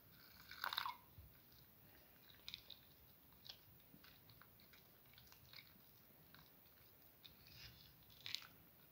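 A short splash of water poured into a bowl of chickpea flour about half a second in, then faint, scattered wet squelches and clicks of fingers mixing the chickpea flour batter by hand.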